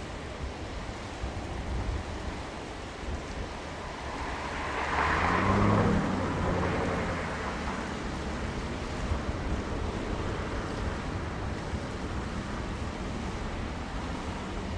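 Airbus A330 jet engines at takeoff power on the takeoff roll, heard at a distance with wind on the microphone. The sound swells to its loudest about five seconds in, then eases a little and holds steady.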